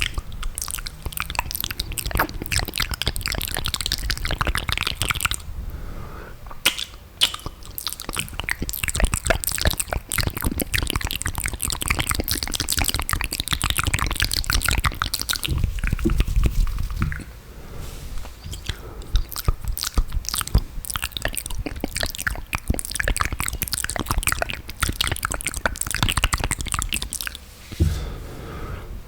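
Close-miked wet mouth sounds: dense runs of saliva clicks, smacks and lip pops, as in spit-painting ASMR, with a couple of brief lulls.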